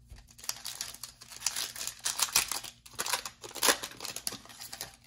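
Foil wrapper of a Panini Mosaic trading-card pack crinkling and tearing as it is ripped open by hand, in a run of crackly rips that are loudest about two and a half and three and a half seconds in.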